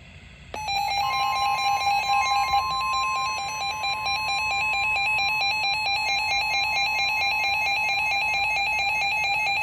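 NOAA weather radios sounding their alarm for a severe thunderstorm warning: a rapid on-off electronic beeping. About a second in, the steady NOAA weather radio warning tone joins it; the tone is loud for a couple of seconds, then softer but still there under the beeping.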